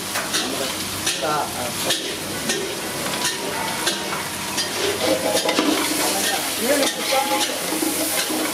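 A metal ladle stirs and scrapes through a large pan of sizzling food for street-stall vegetable pulao, with irregular clinks against the pan over a steady frying hiss.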